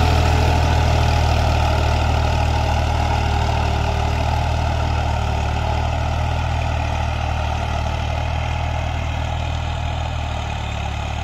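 Ghazi tractor's diesel engine running steadily under load as it pulls a cultivator and leveling plank (suhaga) through the soil, slowly fading as the tractor moves away.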